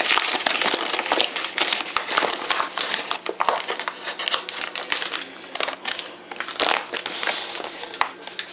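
Paper bag of granulated sugar crinkling and rustling as it is handled.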